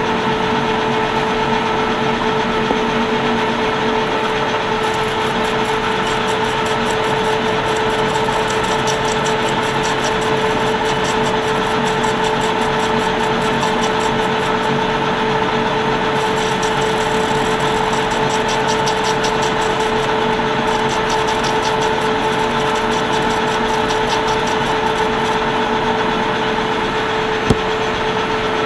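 Metal lathe running steadily, cutting brass hex bar stock, with a steady motor hum and whine. A single sharp click comes near the end.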